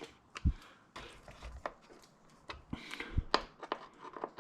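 Irregular sharp clicks and taps, with a couple of dull knocks early on, from screws and plastic motorcycle body parts being handled and fitted by hand.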